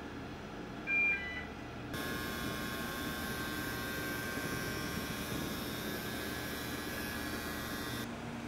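Steady mechanical hum of the self-propelled modular transporters carrying the rocket stage, with one short electronic beep about a second in. About two seconds in, the sound switches abruptly to a brighter hiss with a steady whine, which cuts off near the end.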